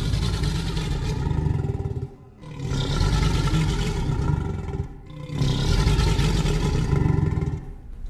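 Deep rumbling calls offered as an imagined Triceratops voice. There are three long calls of about two and a half seconds each, with brief breaks between them.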